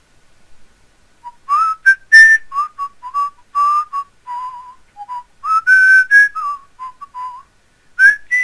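A short whistled tune of quick notes, several of them sliding up into pitch.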